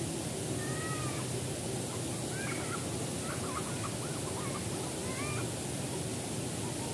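Small forest stream cascading over boulders into a pool, a steady rushing hiss. Faint high wavering calls sound over it twice, briefly near the start and again through the middle.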